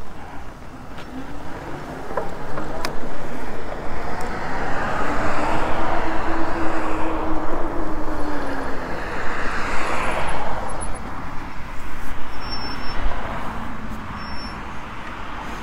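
Road noise of tyres on pavement with wind rushing. It swells from about four to ten seconds in, with a low hum that rises and then falls.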